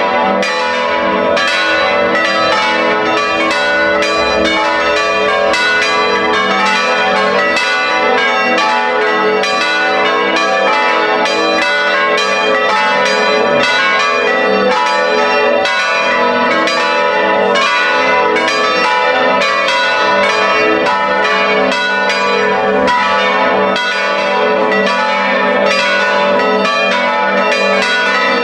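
Several electrically swung church bells from a five-bell concerto tuned in A ring together in a full peal. Their strokes come thick and overlapping, keeping up a continuous ringing.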